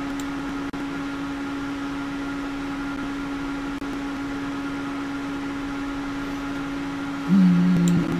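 Desktop PC cooling fans running under a video-encoding load: a steady hum with a clear whining tone. About seven seconds in, a second, lower tone joins and the sound gets louder.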